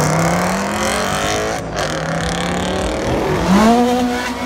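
A car engine revving and accelerating, its pitch climbing, with a brief break about a second and a half in and another sharp rise in revs near the end.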